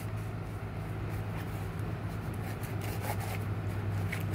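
Silicone spatula stirring thickening glitter-glue slime in a plastic tub: soft scraping and rubbing with small scattered clicks. The slime is forming as the liquid-detergent activator is worked in. A steady low hum runs underneath.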